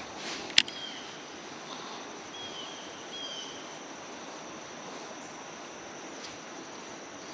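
Steady rush of river water running over shallow shoals. There is a sharp click about half a second in and a fainter one near the end, with a few short, faint chirps in between.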